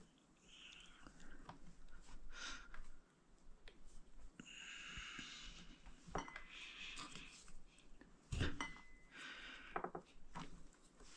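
Faint handling sounds of an RC tire, wheel and metal hose clamps on a workbench: scattered light clicks and clinks with rubbing noise, two short squeaks, and a thump about three-quarters of the way in.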